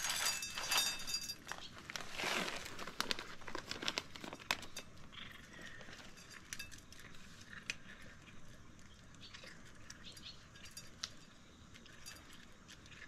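A ringing metallic clink, then light scattered clicks and rustling that thin out to faint occasional ticks.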